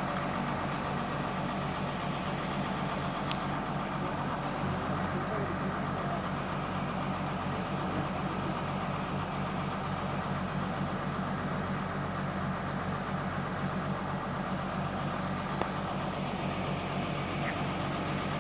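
Engine of a crawler pile-driving rig running steadily, an even drone.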